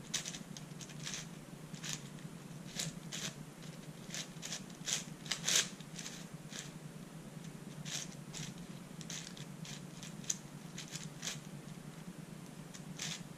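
Plastic layers of a 4x6x8 shapeshifting cuboid twisty puzzle, built from a MFJS Meilong 8x8 with smoothed 3D-printed extensions, clicking and clacking as they are turned quickly in a scramble. The clicks come in an irregular run, with the loudest cluster about five and a half seconds in.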